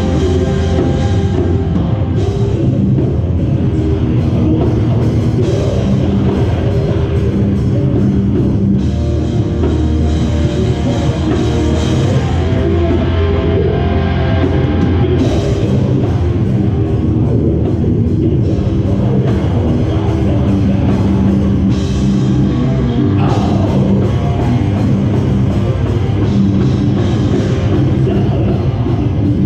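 Metalcore band playing live: distorted electric guitars, bass and drum kit, loud and without a break.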